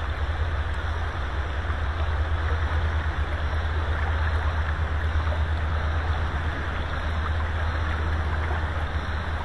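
River current rushing steadily, an even watery hiss over a constant low rumble.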